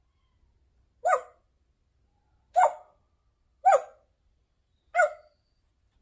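African grey parrot giving four short bark-like calls a little over a second apart, an imitation of a dog barking.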